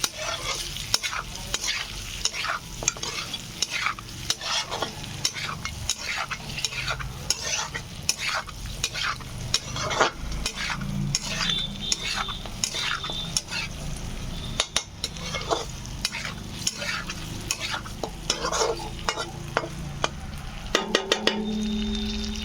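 Meat frying and sizzling in a pan while it is stirred, the spoon scraping across the pan in quick, repeated strokes.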